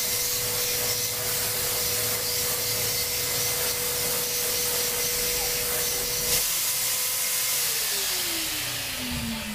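Vacuum cleaner running with a steady hiss and motor whine; a click about six seconds in, then the whine falls steadily in pitch near the end as the motor winds down after being switched off.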